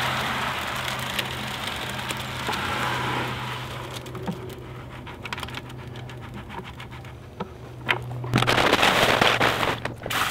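Wet concrete sliding out of a plastic five-gallon bucket into a wooden form, followed by scraping and small knocks as the bucket is emptied. About eight seconds in, a garden hose starts spraying water into the bucket with a loud hiss.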